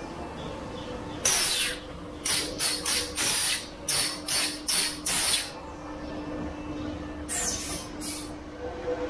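Automatic crystal-pendant making machine running with a steady hum, broken by a rapid series of short, sharp hissing bursts, then a short pause and a couple more near the end.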